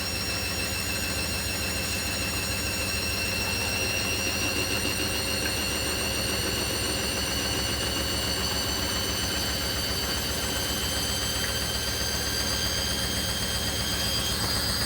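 Hoover washer dryer spinning, its motor whine slowly rising in pitch as the drum speeds up, over a steady rumble. The cabinet is shaking on a bouncy floor.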